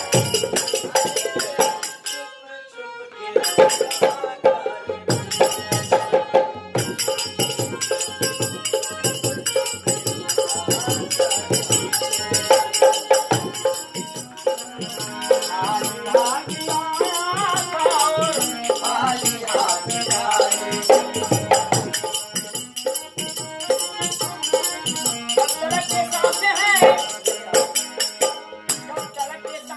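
Live Indian folk music: a harmonium playing over a dholak drum beat and jingling hand percussion, with a man singing a nirgun devotional song, mostly in the second half. The music drops out briefly about two seconds in.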